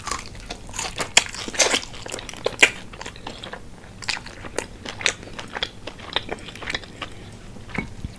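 Close-up crunching and chewing of crispy fried chicken wings, with many sharp, irregular crackles as the breaded skin breaks between the teeth.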